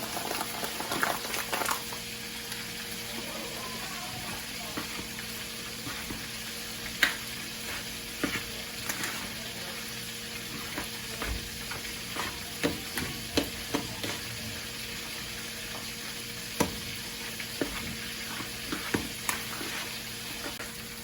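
Spoon stirring potato salad in a bowl: scattered clicks and knocks of the spoon against the bowl over a steady hiss.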